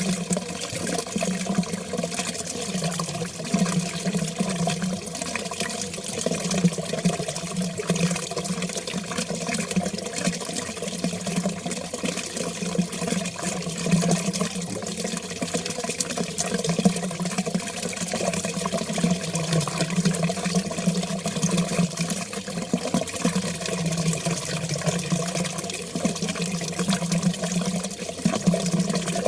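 Water flowing steadily, a continuous splashing rush with no breaks.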